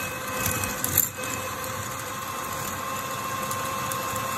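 Electric hand mixer running steadily, its beaters whisking egg yolks and sugar in a bowl: an even motor whine with a brief click about a second in.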